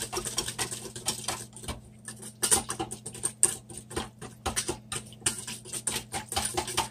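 Whisk beating a thin vinegar-and-oil marinade in a stainless steel bowl: a fast, uneven run of light clicks and taps against the metal, with a short pause about two seconds in.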